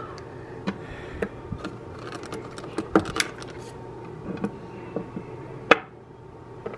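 Scattered light clicks and taps of wax cubes being handled and set into the dish of an electric wax warmer, with a sharper click a little before the end. A faint steady hum runs underneath.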